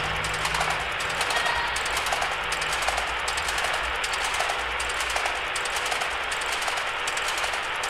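A roller blind rattling as it is wound down with its hand crank: a dense, steady rattle with faint clicks repeating two or three times a second.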